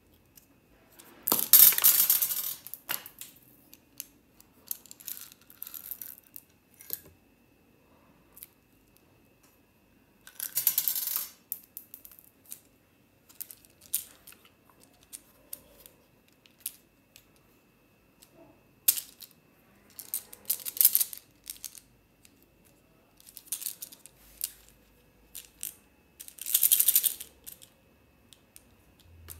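Small hard fruit candies rattling inside a clear plastic umbrella-shaped candy tube as it is shaken, in several short bursts, the first the loudest. Light clicks and taps of handled plastic come between the bursts.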